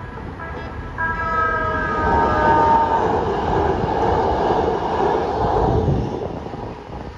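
San Diego Trolley light-rail train passing a level crossing: its horn sounds, its pitch dropping a little as the train goes by, then the rumble of wheels on the rails, which fades near the end.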